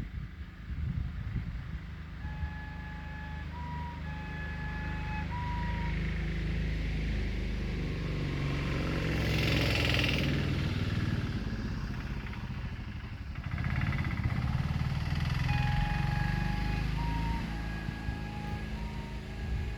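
A motor vehicle's engine running with a steady low rumble, growing louder through the middle. A short tune of clear held notes plays twice over it, once early and once near the end.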